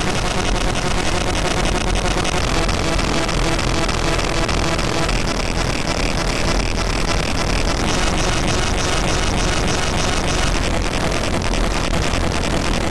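Harsh power-electronics noise music synthesized in SunVox: a loud, steady wall of distorted noise filling the whole range, heaviest in the deep lows.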